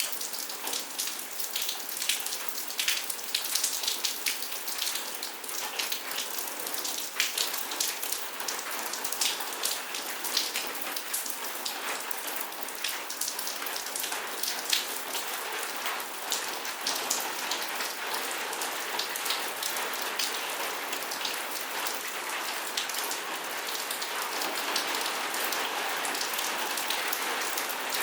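Steady rain falling, a continuous hiss dotted with many sharp, close drop impacts; it grows a little heavier near the end.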